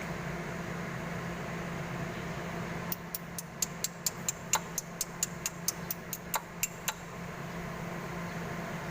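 A quick run of sharp metallic clicks, about five a second for some four seconds starting about three seconds in, over a steady low hum.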